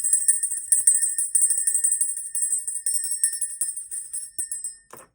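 Small jingle bells shaken continuously in a dense, high jingle with a steady ringing tone under it, used to clear the energy before a tarot reading. The jingling stops near the end, followed by a single knock.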